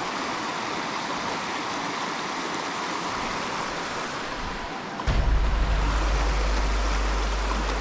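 Steady rush of stream water. About five seconds in, a heavy low rumble starts and becomes the loudest sound.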